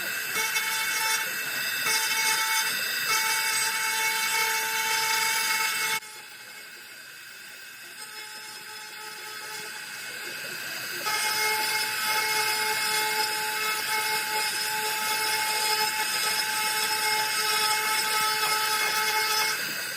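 CNC router spindle whining as its bit cuts into wood, a steady high whine made of several fixed tones. It drops sharply about six seconds in and comes back at full level about five seconds later.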